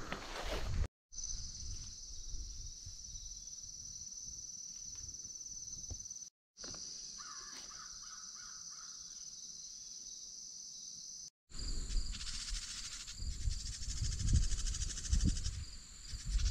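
Steady high-pitched buzzing of late-summer insects, with a bird calling a few times around seven to nine seconds in. From about eleven seconds on, the rustle and thud of footsteps through the undergrowth grows louder over the insects. The sound drops out briefly at three edit cuts.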